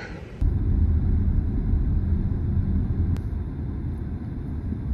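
Small SUV (Vauxhall Mokka) running with a steady low rumble, starting abruptly about half a second in, with a light click a few seconds later.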